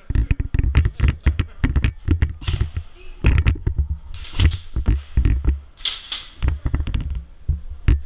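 Clatter of an indoor airsoft game: a rapid, irregular run of clicks and knocks with short hissy bursts about four and six seconds in.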